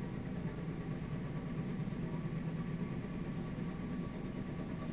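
Heavy-lift helicopter hovering: a steady low drone of engine and rotors.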